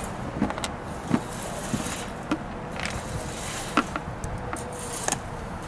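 About six light, scattered clicks and knocks of the plastic toilet parts being handled and fitted, over steady background noise.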